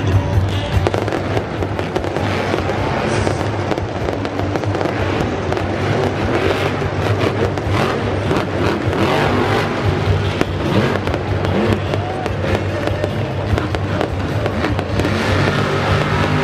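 Grave Digger monster truck's supercharged V8 engine running hard with rapid exhaust popping, over music from the arena's sound system.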